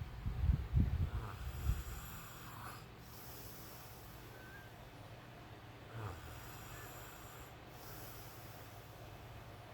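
A man snoring: a loud, low, rumbling snore over the first two seconds, then quieter breathing with a short sound from the throat about six seconds in.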